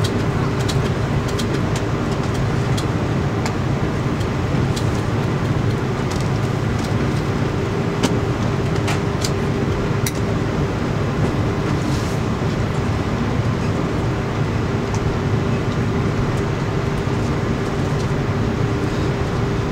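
Steady airliner cabin noise inside an Airbus A330-300 taxiing after landing: an even hum and rush with a constant low drone and a higher steady tone, broken by occasional faint ticks from the cabin.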